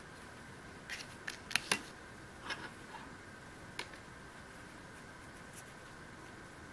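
Small fly-tying scissors snipping: a quick run of sharp clicks in the first two seconds and one more near four seconds, over a faint steady high whine.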